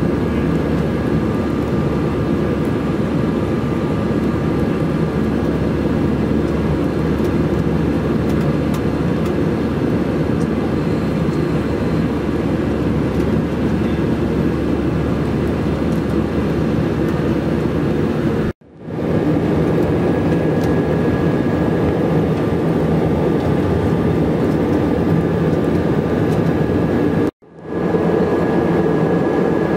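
Steady cabin noise of an Airbus A321-211 in flight, from its CFM56 engines and the airflow, heard inside the cabin, with a faint high whine running through it. The sound cuts out abruptly twice, in the second half and near the end, and fades back in each time.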